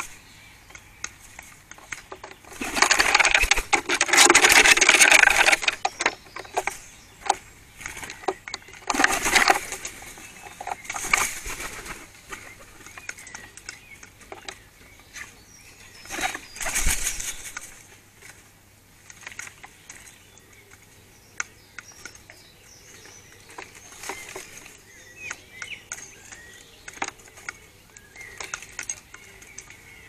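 Garden birds: scattered short clicks and calls, with a loud rushing sound lasting about three seconds near the start and shorter ones later. A small bird sings faintly near the end.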